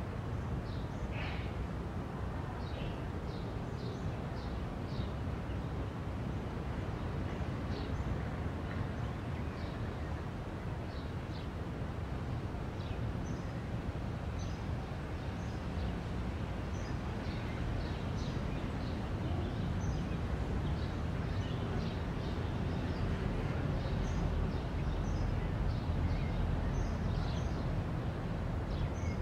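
Birds chirping, many short high calls scattered throughout, over a steady low rumble of background noise.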